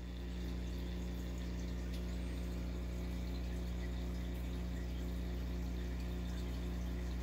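Aquarium filter and pump equipment running: a steady low hum with water trickling over it.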